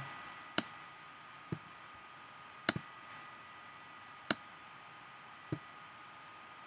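Computer mouse clicks: three sharp clicks spaced one to two seconds apart, the middle one doubled, with two softer low knocks between them, over a faint steady whine.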